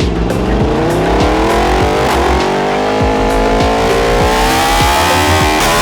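Yamaha R1's 998cc crossplane inline-four accelerating hard, its pitch climbing steadily, over music with a steady beat.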